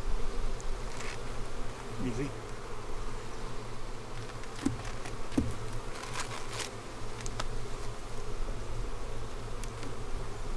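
Honeybees buzzing steadily around an opened hive during an inspection, with a few light clicks midway.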